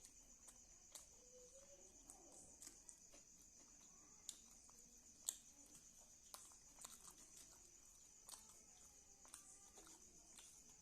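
Faint eating sounds: soft scattered clicks and smacks of chewing and food being handled, one sharper click about five seconds in. A steady, high-pitched pulsing trill runs underneath.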